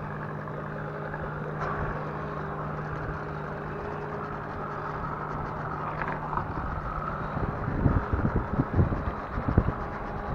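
Outboard boat motor idling with a steady low hum that fades out about halfway through, then wind buffeting the microphone in uneven gusts near the end.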